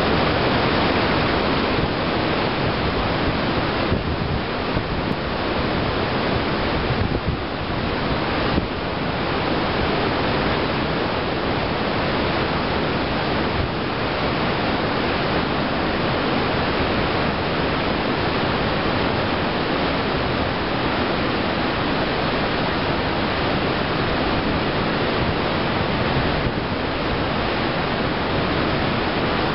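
Steady rush of wind on the microphone mixed with the churning, hissing water of a cruise ship's wake at sea.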